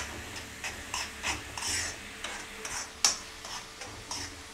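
A metal spoon stirring and scraping chopped onions around a steel kadai, about three strokes a second, with a sharper clink of spoon on pan about three seconds in. The onions are sautéing in oil and butter, with a light sizzle under the strokes.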